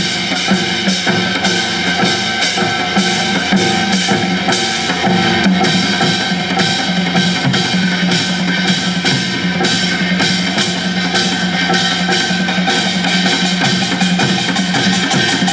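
Traditional Korean music ensemble playing, with fast, dense drumming over steady held instrumental tones.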